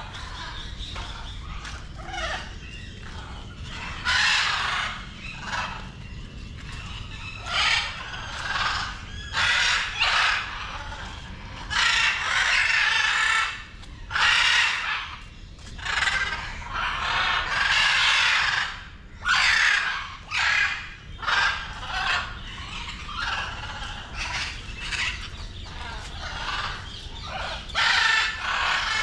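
Birds calling over and over, in loud calls of about half a second to a second and a half each, bunched most densely around the middle.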